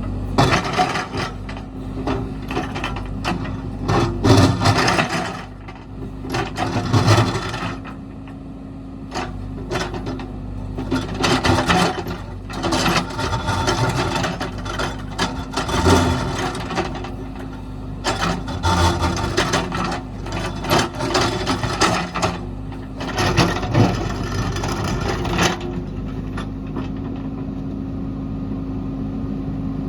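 JCB backhoe loader's diesel engine running steadily while its bucket scrapes and clatters against rock and soil in repeated irregular bursts. Near the end the scraping stops and only the engine is heard.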